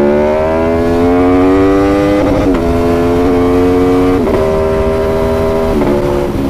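Aprilia Tuono V4 motorcycle engine and exhaust heard from the rider's seat. The engine note rises as the bike accelerates for about two seconds, then drops in sudden steps about two seconds apart as it changes up through the gears, over steady wind and road noise.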